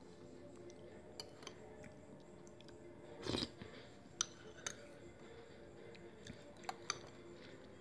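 Light clinks of a spoon against a bowl while eating, about seven short ticks spread through, with one longer, louder scrape about three seconds in.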